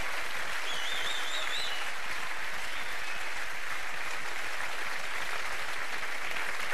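Studio audience applauding steadily, with a brief warbling whistle from the crowd about a second in.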